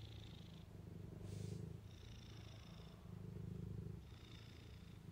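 Tabby cat purring steadily, the purr swelling and easing in a slow, even rhythm.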